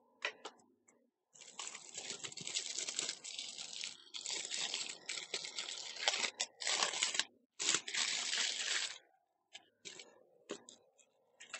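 Plastic packaging being torn and pulled off by hand: several stretches of tearing and crinkling, then a few small crackles near the end.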